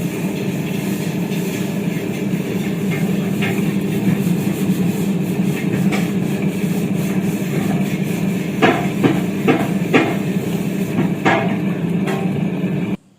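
Premier PG-502 tilting table-top wet grinder running with its lid closed, its stones grinding a load of rice, in a steady low hum. A few sharp knocks come in the last third, and the sound cuts off abruptly near the end.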